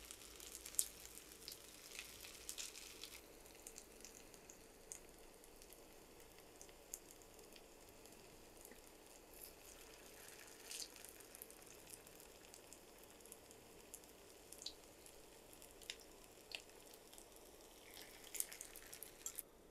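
Potato kababs shallow-frying in a little oil in a nonstick pan: a faint sizzle with scattered small crackles and pops.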